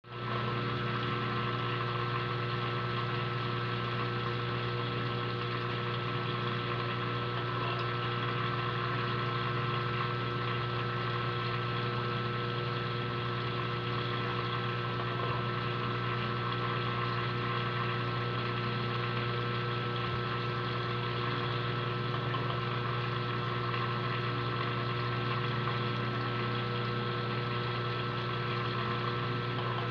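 Aquarium pump humming steadily: a low electrical drone with a few fixed higher tones over a faint hiss, unchanging throughout.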